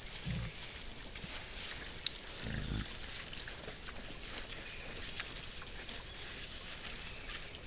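Wild boars grunting low, twice, among scattered sharp clicks and crackles.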